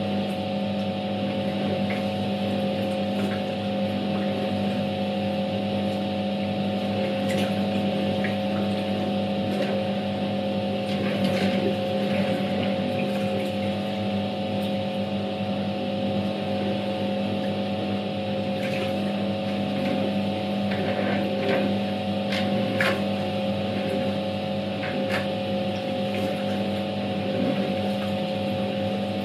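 Światowit M4 impeller washing machine running a wash: its EDA SED-110-4 capacitor motor hums steadily under the swishing of water and laundry churned by the impeller, with scattered brief clicks.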